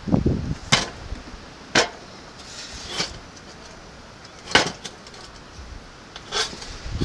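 Heavy steel shell of a scroll air-conditioner compressor being handled and turned upside down on a metal workbench: a dull thump at the start, then about five short, sharp metal knocks spaced a second or so apart.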